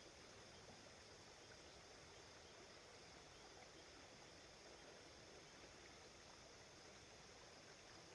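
Faint, steady flow of the Clarion River, an even rushing with no distinct splashes, over a faint steady high-pitched hum.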